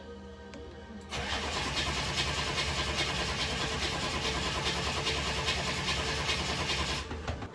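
Refurbished 6.2-litre V8 diesel of a 1983 Chevy Suburban being cranked over by the starter, trying to fire on its first start. The cranking starts about a second in and breaks off briefly near the end.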